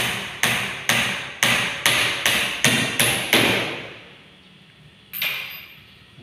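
Hammer blows on the wooden ceiling frame overhead: about nine sharp knocks, roughly two a second, then a pause and one more blow near the end.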